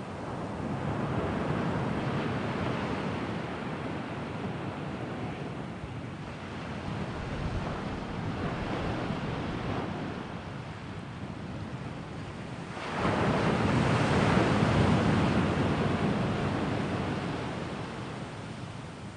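Sea waves surging and washing in slow swells, the biggest one breaking suddenly about two-thirds of the way through and slowly fading.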